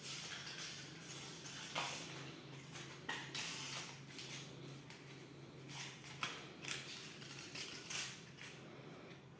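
Irregular light clicks and rustling, with a steady low hum underneath.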